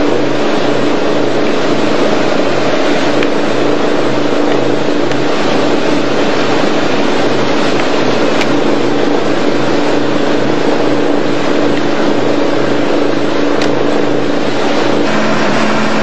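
Boat's engine running steadily under way, a constant hum with an evenly pulsing low note, over a loud, even rush of wind and water.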